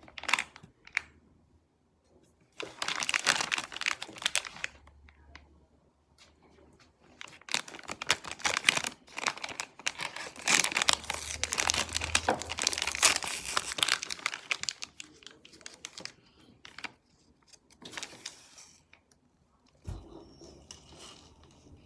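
Plastic snack bag of QQ grape gummies crinkling and tearing as it is handled and torn open by hand, in several bouts of rustling with short pauses between them; the longest runs from about seven to fourteen seconds in.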